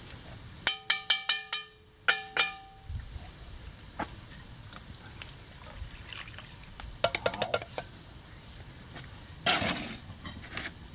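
Ringing metal clinks and taps as a can of diced tomatoes is emptied into a cast iron Dutch oven, in two bunches of quick strikes, then a short splash of liquid going into the pot near the end.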